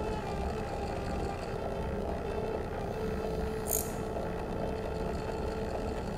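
Experimental improvised electroacoustic music: a steady, low rumbling drone with a held mid-pitched tone over it, and a short hiss about four seconds in.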